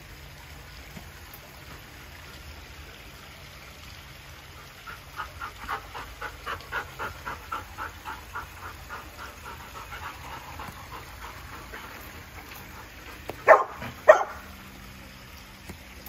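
Labrador retriever panting quickly, about four breaths a second, gradually fading, then two loud barks about half a second apart.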